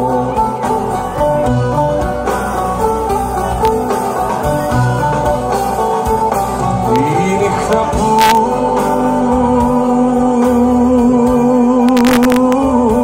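A male singer singing live into a microphone over instrumental accompaniment, holding one long note with vibrato through the second half.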